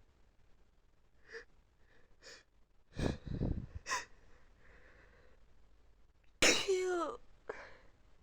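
A sneezing fit: short catching breaths, a heavier burst about three seconds in, then a loud voiced sneeze with a falling pitch about six and a half seconds in, followed by a breath.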